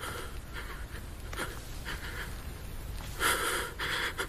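A person breathing heavily: faint breaths at first, then louder, quick breaths in and out from about three seconds in.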